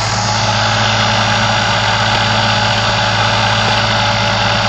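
Induction motor with combined "Slavyanka" windings running steadily at about 3,250 rpm on a test bench, giving a loud, even electrical hum with a high whir over it.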